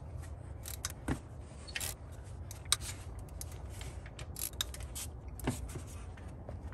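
Socket ratchet clicking in short, irregular runs, with light metal tool clinks, as the water pump bolts on a Toyota 3RZ-FE engine are loosened and backed out.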